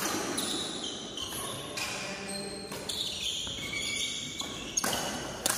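Badminton play in a large echoing hall: several sharp hits of rackets on a shuttlecock, with thin high squeaks of court shoes on the floor between them.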